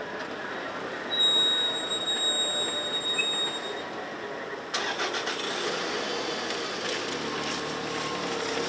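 Railway level crossing with its barrier arms lifting after a train. A high steady squeal runs from about one to four seconds in, and a broad rushing noise starts suddenly about five seconds in.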